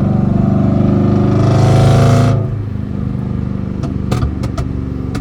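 Lexus GS400's 1UZ V8 through a 2.5-inch straight-pipe exhaust with stock catalytic converters, revved and held for about two seconds. It then drops back to a steady idle, with a few sharp clicks near the end.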